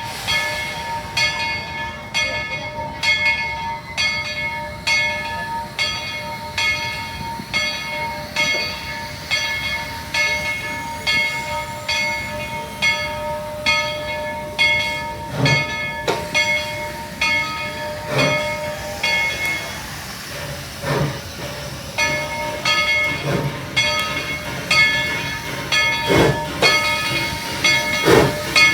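Steam locomotive bell ringing steadily, a stroke a little more than once a second, over a steady hissing whine. From about halfway, slow heavy exhaust chuffs come in a couple of seconds apart as the 2-8-2 Mikado locomotive No. 190 starts its train.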